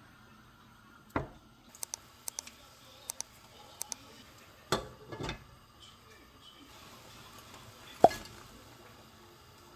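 A few scattered knocks and light clicks, like objects being handled and set down, with a sharp knock about eight seconds in.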